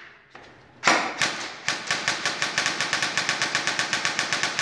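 Airsoft rifle firing on full auto: a short burst about a second in, then a steady stream of rapid shots that keeps going.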